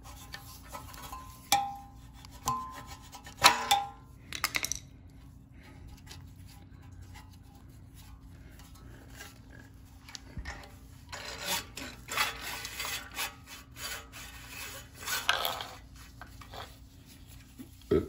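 Pull-starter rope on a Briggs & Stratton Quantum recoil starter rubbing and sliding through its rope guide as the recoil rewinds it, in several rasping stretches in the second half. A few sharp clinks come in the first few seconds, as the recoil pulley is held with a screwdriver.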